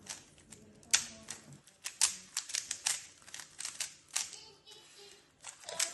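3x3 Rubik's cube being turned quickly by hand: its plastic layers click and clack in irregular quick runs, with a sharp snap about a second in.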